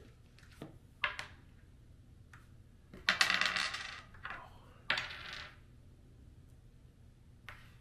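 Wooden crokinole discs clicking and clattering as they are handled and set on the wooden board, with the densest clatter about three seconds in and a single sharp click near the end.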